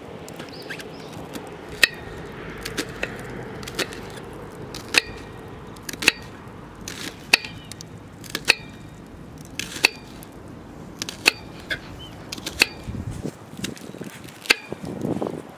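Repeated sharp chopping strikes, about one every second or so, some with a short metallic ring. A brief rustle of handling noise near the end.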